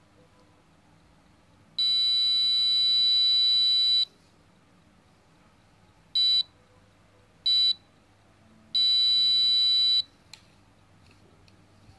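High-pitched electronic beeping from the Arduino guard robot's small speaker: a long beep of about two seconds, two short beeps, then another beep of over a second. It is the robot's alarm, set off when something comes within range of its ultrasonic distance sensor.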